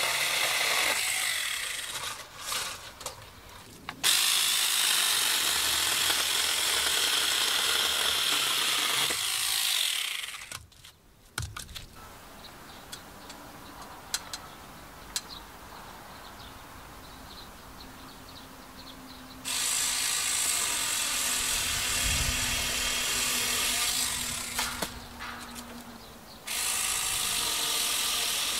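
Handheld power tool running in several bursts of a few seconds each, each starting and stopping abruptly, with quieter gaps between.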